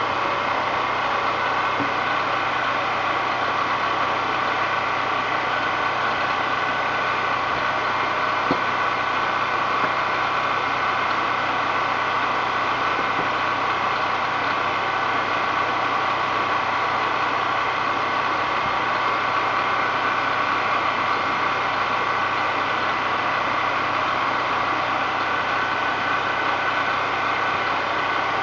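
A small engine running steadily at one constant speed, an even hum with a fixed pitch and no breaks.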